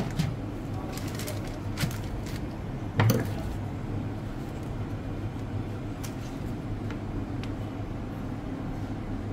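Steady low hum of a busy street-food counter, with a few light clicks and one louder knock about three seconds in as a filled sandwich is set down on its paper wrapper on the steel counter.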